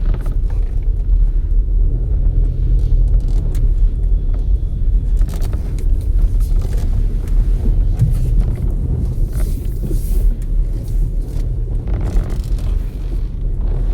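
Cabin noise of a Volkswagen Taigun on the move: a steady road rumble with short, irregular squeaks and creaks. The squeaks come from the doors' rubber beading rubbing against the metal body.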